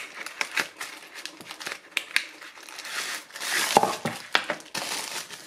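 Cardboard box being opened and handled, with scattered light clicks and scrapes. In the second half a thin plastic bag crinkles as it is pulled out and unwrapped.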